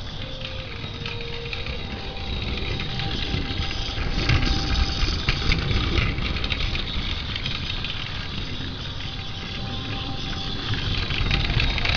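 Plarail C12 toy steam locomotive running on plastic track: its small battery motor whirs and its wheels rattle over the track. The sound grows louder about four seconds in and again near the end.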